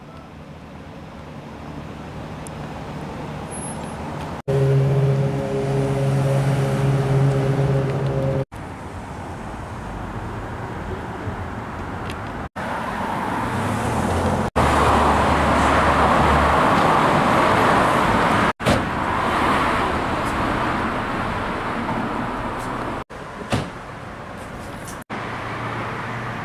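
City street traffic in a series of abrupt cuts: motor vehicles running and passing. In one stretch an engine hums steadily, and later a large vehicle passes close by with a loud rush of engine and tyre noise.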